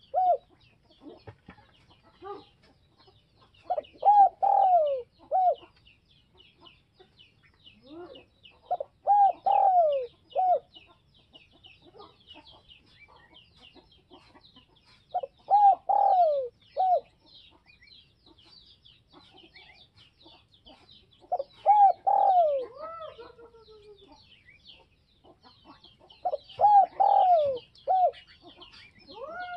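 Spotted dove cooing: about five phrases, each of three or four short notes ending in a longer falling note, repeated every five or six seconds. This is the call of a decoy dove used to lure wild doves. Faint twittering of small birds runs underneath.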